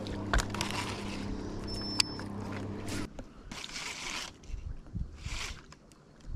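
A boat's motor hums steadily and cuts off abruptly about three seconds in. Short rasping bursts of a fishing reel being cranked come and go over the hum and after it stops.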